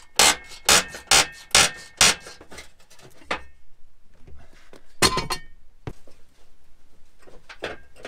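Metal tool knocking on a combine header's steel auger drum: about five sharp ringing clanks in quick succession as its round access cover is worked loose, then scraping and one more clank about five seconds in.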